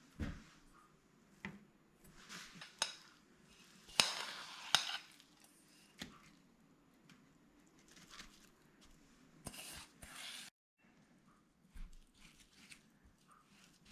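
Kitchen handling sounds: scattered light clinks and taps of utensils and dishes, with a longer crackly rustle about four to five seconds in.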